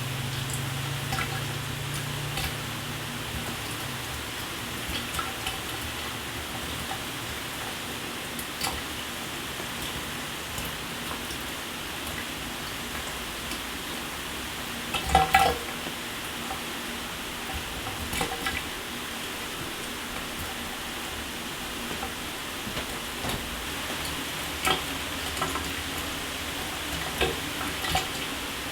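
Shower running: water spray hissing steadily onto a hard surface, with scattered sharper drips and splatters and a louder burst of splashing about halfway through. A faint low hum fades out in the first few seconds.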